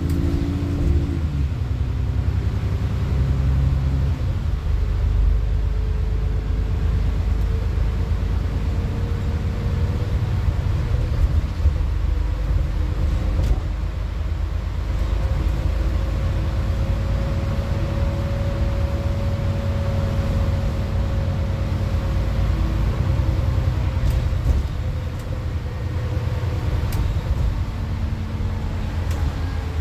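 Alexander Dennis Enviro400 (E40D) double-decker bus heard from inside the lower deck while under way: a steady diesel engine and road rumble, with a faint whine that slowly rises and then falls in pitch through the middle of the stretch.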